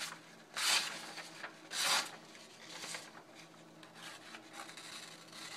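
A freshly sharpened knife blade slicing through a sheet of paper. There are two short slices about a second apart, then a fainter one, then lighter scraping of blade on paper. The blade cuts cleanly through the sheet, the sign of a sharp edge.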